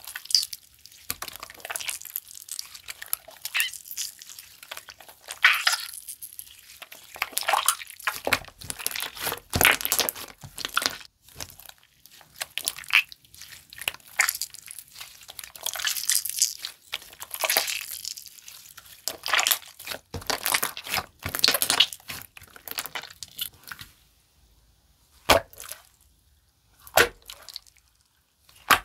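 Water-glue slime being squeezed, stretched and pressed by hand: wet squishing with irregular crackling pops and clicks of trapped air. It grows sparser near the end, with two sharp clicks.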